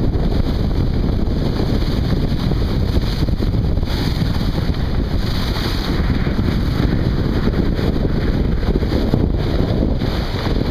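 Steady wind buffeting the microphone on the deck of a sailing yacht under sail, over the rush of water along the hull.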